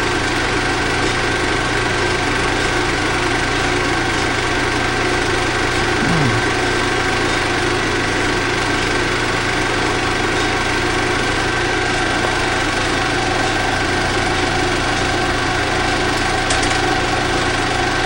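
16mm film projector running: a steady mechanical whir with a thin, constant whine.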